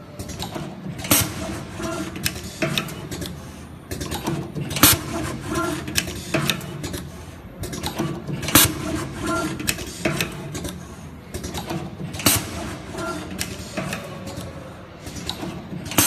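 Parovi PRV-WP-5505 automatic wire cutting, stripping, crimping and tinning machine running its automatic cycle: a steady patter of small mechanical clicks and clacks, with a loud sharp clack about every three and a half to four seconds as each wire is processed.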